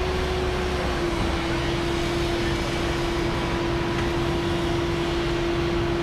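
Concrete pump truck running during a pour: steady mechanical drone with a held whine.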